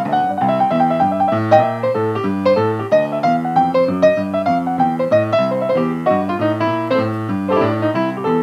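Solo piano playing an upbeat instrumental passage, with a rolling left-hand bass line repeating under quick repeated right-hand notes.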